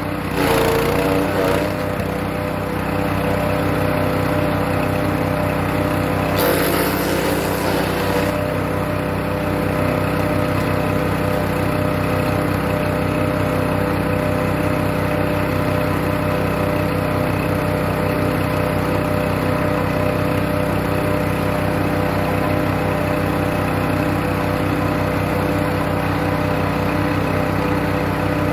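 Hecht 6208 wood chipper's small engine running steadily, with brief bursts of chipping noise as birch wood is fed through, near the start and again around six to eight seconds in.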